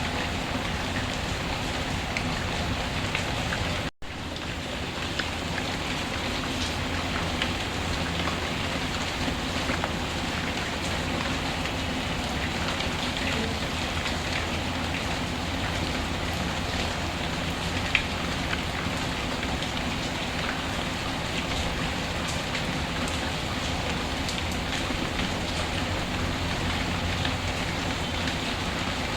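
Steady rainfall mixed with the scattered sharp crackles of a wood fire. The sound drops out for a split second about four seconds in, then resumes.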